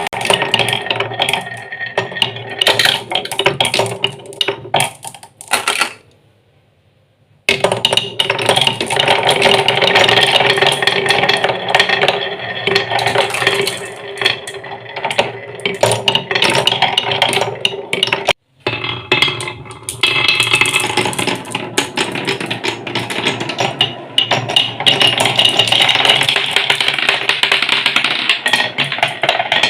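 Marbles rolling and clattering along a wooden marble run, a steady rolling rumble dotted with many small clicks and knocks. The sound cuts out for about a second and a half near the start and again briefly about two-thirds of the way through.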